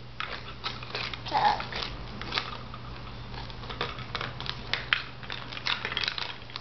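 Kitchen spoons stirring and knocking inside a plastic colander: a run of irregular clicks and scrapes.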